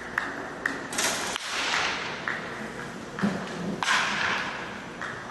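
Sharp knocks and cracks of baseball practice at irregular intervals, some with a short ring. Two longer hissing rushes of noise come about a second in and again near four seconds.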